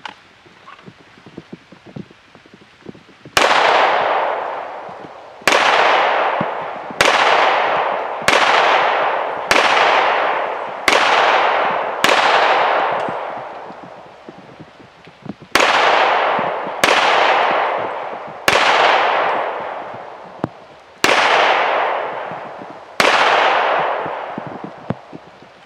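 About a dozen single pistol shots from an FN FNX handgun, fired at a slow, deliberate pace about one every one and a half seconds, with a short pause midway. Each shot is loud and sharp, trailing a long echo that dies away before the next.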